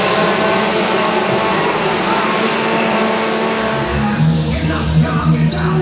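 Chainsaw engines running over crowd noise. About four seconds in, music with a heavy bass line takes over.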